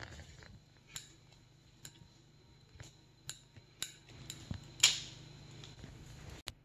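Squeeze-handle metal cookie scoop clicking as its release lever is worked to drop dough: scattered light metallic clicks and taps, about one a second, the loudest a sharp click near five seconds in.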